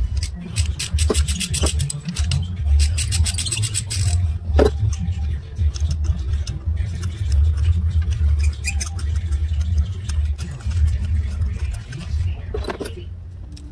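Ratchet wrench clicking in quick runs as a spark plug socket on an extension is turned in the plug well, most of it in the first four seconds, over a steady low rumble.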